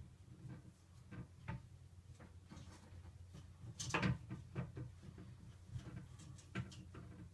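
Faint, scattered knocks and clatter over a low steady hum, with a louder burst of knocking about four seconds in.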